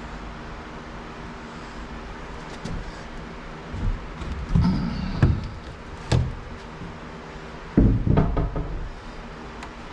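Electrical cable being worked through holes in wooden wall framing: irregular knocks and rubbing thumps, loudest about eight seconds in, over a steady low hum.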